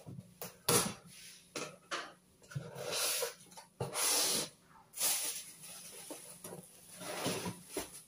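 Cardboard box flaps being pulled open and folded back by hand: scraping, rustling cardboard in several short bursts, with small knocks and clicks as the box is handled.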